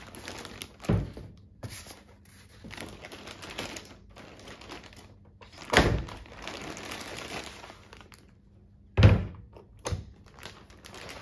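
Plastic bag crinkling and packing being handled as a bench oscilloscope is unwrapped, with three dull thunks on the table about one, six and nine seconds in; the last and loudest comes as the oscilloscope is set down.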